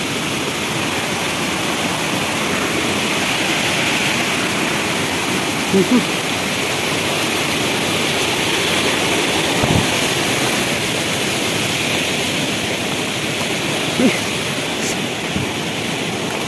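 Jungle stream cascading over rocks: a steady rush of water.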